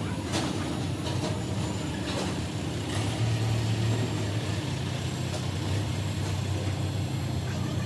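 IFB front-load washing machine drum spinning: a steady motor hum with a few faint clicks, and no scraping from the drum now that the spider arm has been replaced and the rust cleared out.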